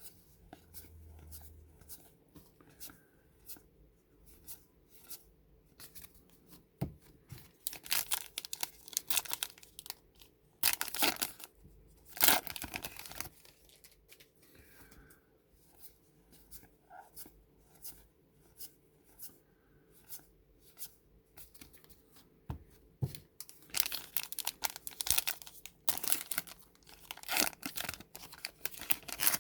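Baseball card pack wrappers being torn open and crinkled, in two loud stretches about a third of the way in and again near the end, with light clicks and rustles in between.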